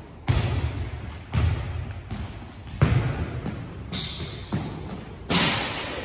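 Volleyballs being struck by hand and bouncing on a hardwood gym floor: five sharp smacks roughly a second apart, each ringing on in the echoing hall, with a couple of short high squeaks between them.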